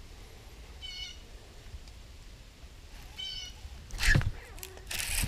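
Two short mewing calls, about two seconds apart, then a loud sudden thump and swish as a baitcasting rod is jerked back to set the hook, with a burst of rushing noise near the end.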